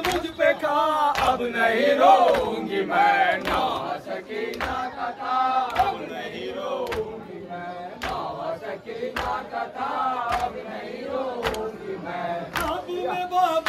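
A group of men chanting a mourning lament together, with sharp beats about once a second.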